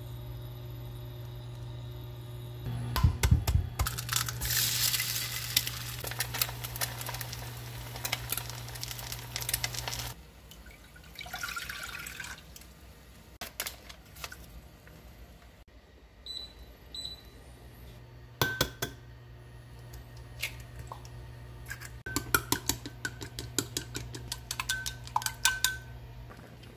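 Home kitchen cooking sounds: liquid poured into a pan, hissing for several seconds, and pots and utensils clinking. Near the end, eggs are beaten in a glass bowl with a utensil in fast clicks. A steady low hum runs under most of it.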